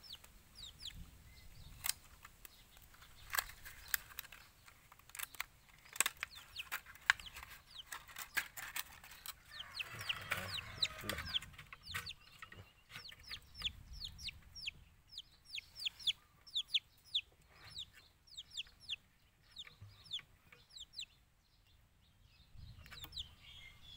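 Chickens clucking, with fast runs of short, high, falling chirps. Scattered sharp clicks and taps come from hands working rubber bands and string on a plastic water jug.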